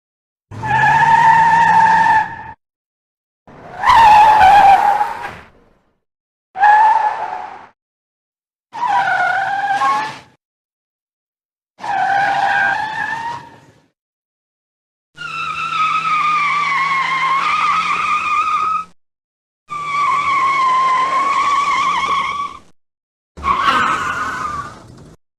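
A string of eight separate car tire skids, library sound effects played one after another with short silences between. Each is a tire squeal lasting one to four seconds, pitched high with a wavering, sometimes dipping tone. The longer ones come in the second half.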